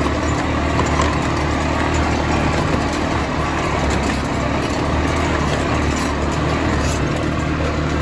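ATV (quad bike) engines running steadily at low revs as the quads ride slowly along a dirt track, a constant low drone.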